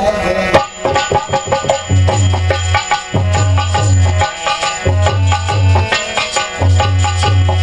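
Instrumental interlude of a devotional bhajan: quick hand-drum strikes over held melodic tones and a repeating low bass figure, after a sung line ends about half a second in.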